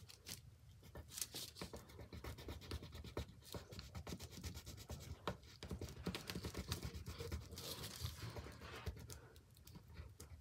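Faint scratching of a black marker tip on paper: many quick short strokes as a small circle is coloured in.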